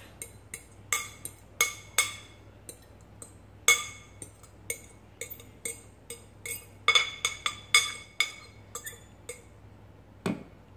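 Utensil clinking and tapping against the inside of a glass mixing bowl, scraping out the last of the salad dressing: a quick irregular run of bright, briefly ringing clinks, with one duller knock near the end.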